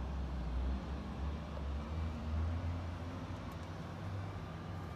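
Wind buffeting the microphone: an uneven low rumble that swells and eases, with a faint hiss over it.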